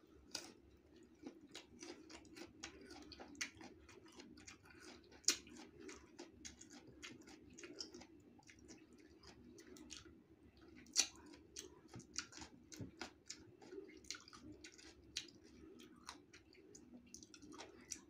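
Close-up chewing and crunching of crisp green mango slices: many small crackly clicks at an uneven pace, a few louder crunches about five and eleven seconds in, over a faint steady low hum.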